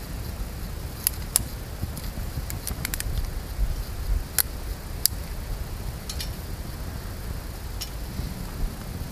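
Kindling burning in a small titanium wood stove, crackling with irregular sharp pops, about a dozen spread over several seconds, over a steady low rumble.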